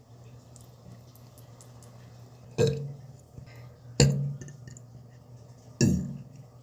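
A person burping three times. Each burp is short and sudden and dies away within about half a second, and they come a second or two apart.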